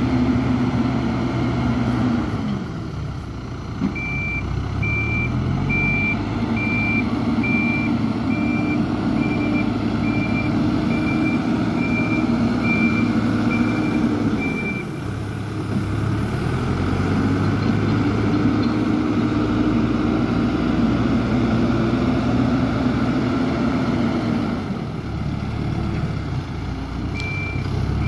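A vehicle engine running, its speed dropping and climbing again three times, with a reversing alarm beeping at a steady, regular pace for about ten seconds and starting again near the end.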